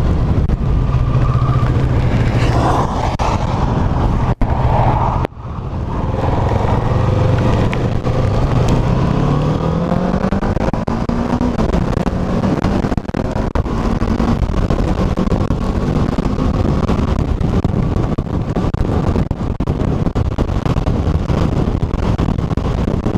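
Kawasaki motorcycle engine running under way, dipping briefly twice about four and five seconds in, then rising steadily in pitch as the bike accelerates, over constant wind rushing on the microphone.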